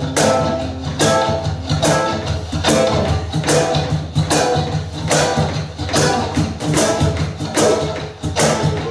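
Live band playing an instrumental passage: a steady bass line under a strong drum hit about every 0.8 seconds, with other instruments over it.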